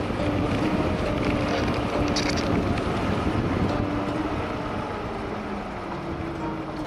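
Wind rushing over the microphone of a camera on a moving bicycle, a steady noisy roar with faint hums in it, easing off slightly in the second half as soft music comes in near the end.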